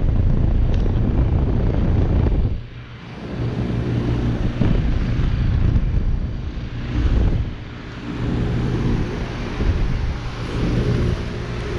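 2024 Trane XR14 2.5-ton heat pump outdoor unit running in heat mode: the fan blows air through the coil while the compressor hums steadily. The loudness dips sharply about two and a half seconds in and again near eight seconds, then comes back up.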